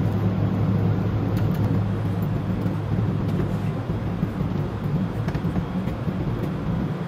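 Steady low mechanical hum over an even rushing noise, echoing in an underground car park, with a few faint knocks.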